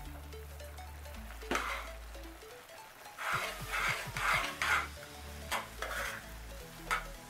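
A metal fork stirring oats into boiling vegetable gravy in a metal saucepan. It scrapes once early, then makes a quick run of four or five scraping strokes against the pan about three seconds in, then a couple of single scrapes.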